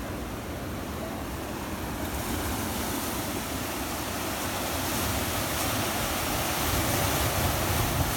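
Ocean surf washing and breaking over shoreline rocks, a steady rush that grows louder from about two seconds in, with wind buffeting the microphone.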